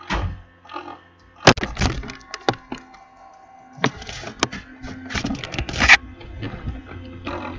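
Sharp knocks, clicks and rustling from things being handled on a desk close to the microphone, with the loudest knock about one and a half seconds in and a burst of rustling and clatter about four to six seconds in.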